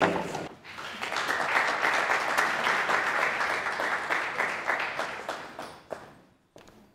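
Audience applauding, the clapping dying away over the last couple of seconds and leaving a few scattered faint knocks.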